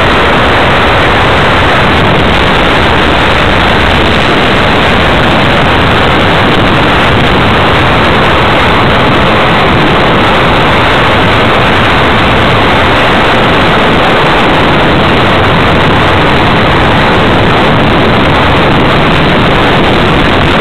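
Loud, steady hiss with no distinct tone or rhythm, heard on the onboard audio of a flying RC FPV model aircraft.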